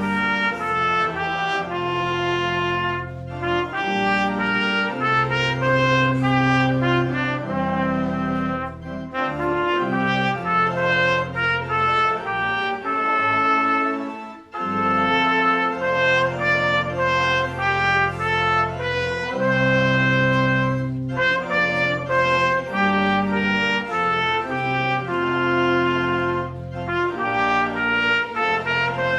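Brassy instrumental music: held chords over a moving bass line, with a brief break between phrases about halfway through.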